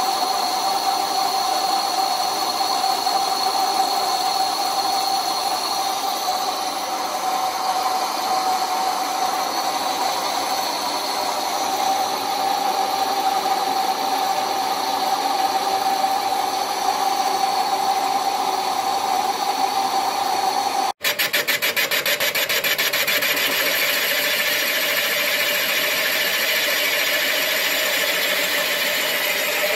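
Metal lathe running under cut, a steady machine hum with a constant whine. A sudden break about two-thirds of the way through gives way to the lathe boring a cast-iron cylinder casting, with a fast, even pulsing in the sound.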